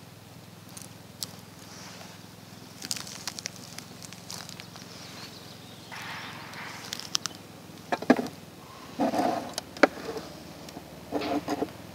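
Clicks, taps and short rattling knocks of a hand handling a plastic electronics enclosure. The loudest clusters come in the second half, as its clear snap-on lid is worked open.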